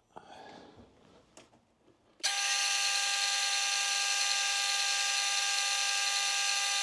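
Lathe starting up about two seconds in and running with a steady whine while a 5/32-inch drill bit bores into the end of a silver steel rod held in the three-jaw chuck.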